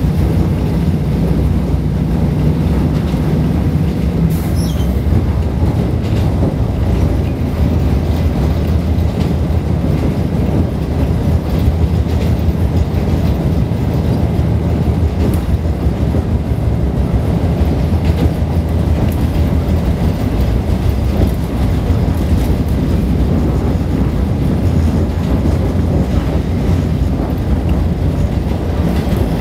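Passenger train running at speed, heard from inside the carriage: a steady low rumble with occasional faint clicks from the wheels.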